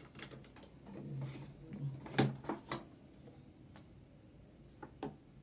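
Small objects and containers being handled and set down: a few scattered clicks and knocks, the loudest about two seconds in.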